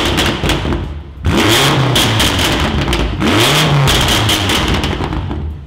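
BMW F90 M5's twin-turbo V8 blipped three times in quick succession, each rev rising and falling in pitch, with rapid exhaust crackles and pops on the overrun from its pops-and-bangs tune.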